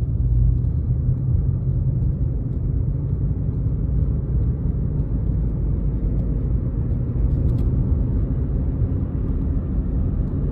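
Steady low rumble of a car driving, road and engine noise heard from inside the vehicle.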